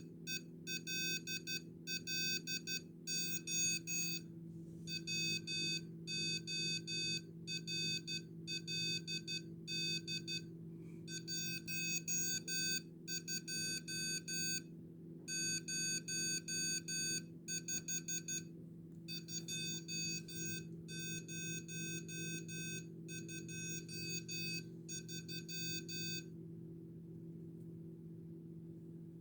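Morse code sent as electronic beeps from an ATmega328P-driven beeper: short and long tones of one fixed pitch, grouped into letters with gaps between them, stopping a few seconds before the end. A steady low hum runs underneath.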